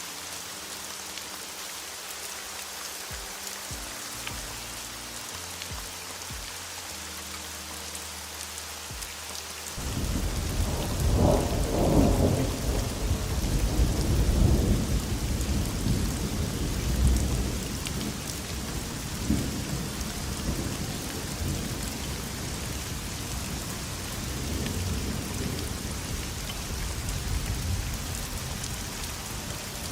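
Steady heavy rain. About a third of the way in, a long roll of thunder comes in suddenly, rumbles loudest for several seconds, then slowly fades into a low rumble under the rain.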